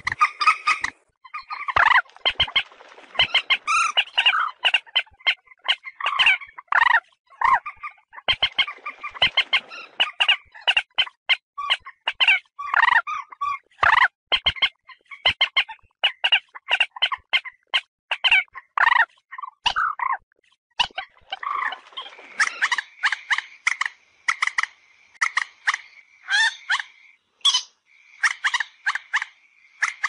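Common moorhens giving fighting calls: a rapid, uneven run of short, sharp clucking and croaking notes, one after another. In the last third a thin, steady high note runs beneath the calls.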